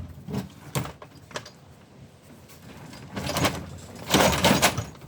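Rummaging through tools and hardware: a few short knocks, then two longer bouts of clattering about three and four seconds in.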